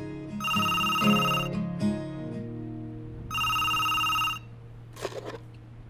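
Cordless home phone ringing twice, each electronic ring about a second long, over acoustic guitar picking that stops about two seconds in and leaves a low note sounding. A short clatter near the end as the handset is picked up.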